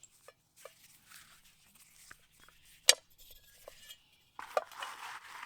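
Metal camp cookware being handled and set down: scattered light clinks, a sharp clack about three seconds in, and a short burst of handling noise near the end.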